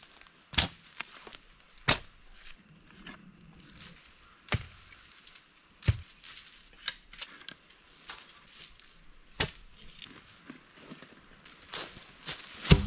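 Irregular sharp chopping strikes of a hand digging tool into soil and roots, one to three seconds apart, with softer knocks between them. The hardest strike comes near the end.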